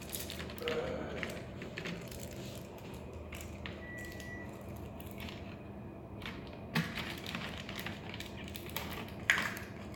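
Tape being peeled and plastic toy packaging crinkling under the hands, a steady patter of small crackles, with a couple of louder snaps in the second half.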